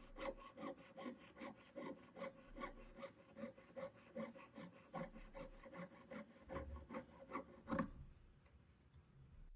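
Jeweler's saw with a fine 1/0 blade cutting through the overlapped join of a 12-gauge square sterling silver wire ring: faint, quick back-and-forth strokes, about four a second, stopping about eight seconds in.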